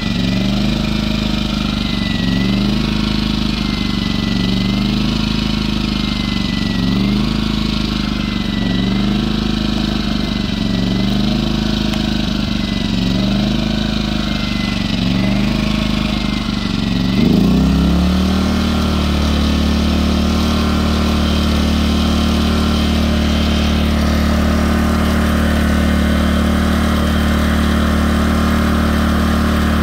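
Firman W01785 inverter generator's small engine running with its speed rising and falling in a regular surge about every two seconds. A bit over halfway through the pitch shifts abruptly with a brief swell in loudness, and from then on the engine runs at a steady speed.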